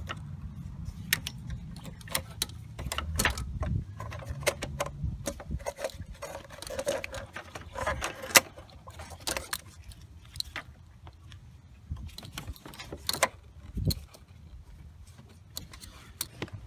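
Hose clamp pliers working a spring hose clamp on a radiator hose: scattered sharp metallic clicks and rattles, with a low rumble over the first few seconds.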